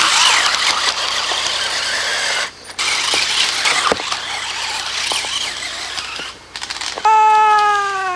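Radio-controlled buggy's motor and gears whirring in bursts as it is driven over dirt, cutting out briefly twice. About seven seconds in, a loud whine slides steadily down in pitch.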